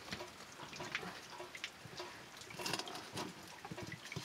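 Wooden spatula scraping and stirring soft cooked food on a metal plate and in a black pot: scattered light scrapes and small knocks with wet squelches.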